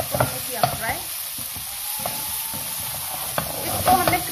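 Chicken and vegetables sizzling in a non-stick wok over high flame, while a wooden spatula stirs and scrapes against the pan in short strokes, bunched most thickly near the end.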